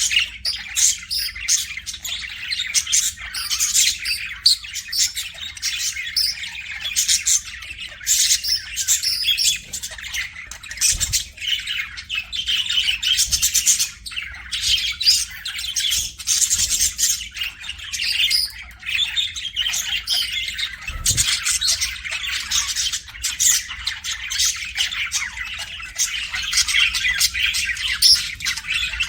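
Pet budgerigars chattering continuously, a dense stream of warbles, chirps and squawks from several birds.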